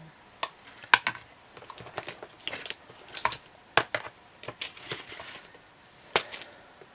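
Irregular light clicks and taps of small hard objects being picked up and set down while craft supplies are rummaged through.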